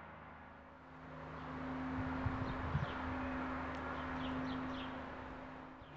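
Outdoor ambience: a steady low hum under an even background hiss, with a brief low rumble and a few short bird chirps around the middle.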